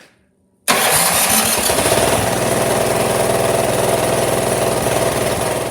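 The 357cc single-cylinder engine of an MTD Pro 30-inch two-stage snowblower running steadily, coming in abruptly about a second in. It runs now that its stuck carburetor float has been freed and fuel is flowing again.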